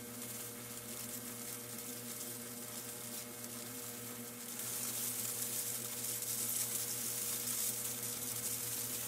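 Small metal lathe turning down an aluminium slug with a deep cut at a very fine hand feed. The motor hums steadily under the hiss of the tool cutting, and the hiss grows louder about halfway through.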